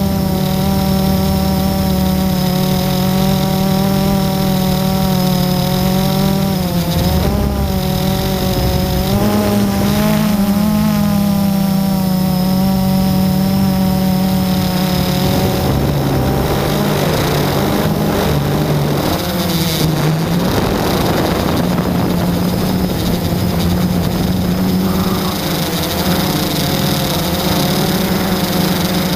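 Electric motors and propellers of an FPV drone heard from its onboard camera: a steady whine made of several pitches that waver up and down as the throttle changes about a third of the way in. It turns rougher and more rushing from about halfway through.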